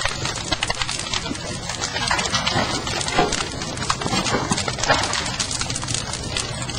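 Fire in a pile of wooden debris, crackling with many irregular sharp pops and snaps over a steady low rumble.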